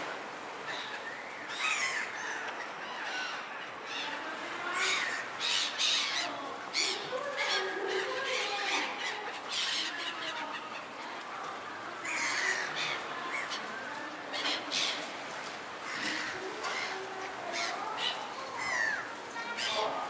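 Seagulls calling over and over in short squawks, several birds overlapping, with busier bursts of calls in the middle and again later on.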